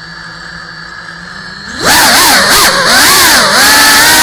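GEPRC Cinelog 35 cinewhoop quadcopter's brushless motors and ducted propellers: a steady idle whine while armed and sitting still. About two seconds in they throttle up loudly for takeoff, and the pitch rises and falls as the throttle changes.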